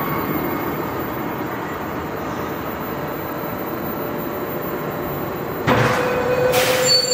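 Seoul Subway Line 9 train pulling in slowly alongside the platform, a steady rumble of wheels and motors. Near the end, as it slows to a stop, a sudden louder noise comes in with a steady whine, followed by a short hiss.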